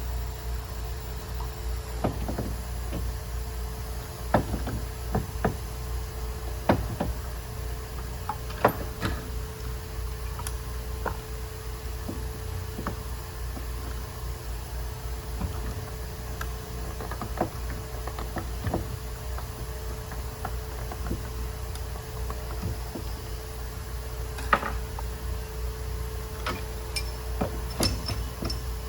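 Scattered light knocks and clicks, irregular, with a cluster in the first third and more near the end, over a steady low hum.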